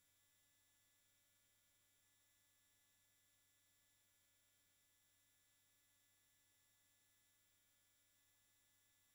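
Near silence: only a faint, steady electrical tone with no other sound.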